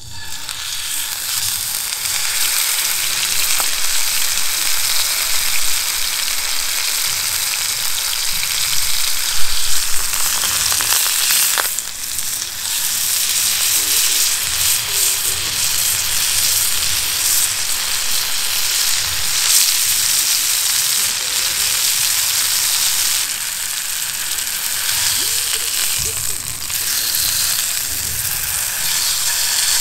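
Block of beef searing in an oiled cast-iron skillet over campfire embers, sizzling steadily. A sharp click comes about midway.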